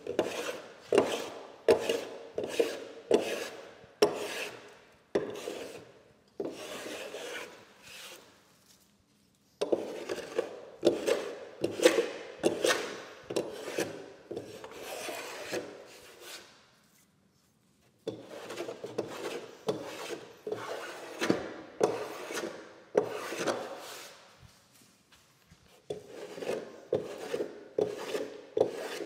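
A hand block plane shaving the freshly saw-cut edge of a wooden beam down to a scribe line, in repeated short strokes of about two a second. The strokes come in three runs with brief pauses between them.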